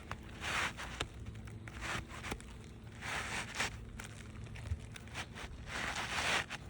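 Asphalt shingle being handled and slid into place on a roof: repeated scraping, rustling swishes with a few faint ticks.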